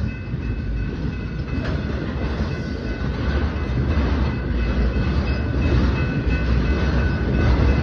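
Freight train rolling past at close range: a dense, steady rumble of wheels on rail, with a faint steady high whine over it.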